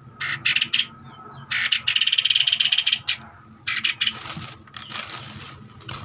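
Caged bulbuls fighting, giving harsh, fast chattering calls in three bursts. Near the end comes a rustling flurry of wing flapping against the wire cage.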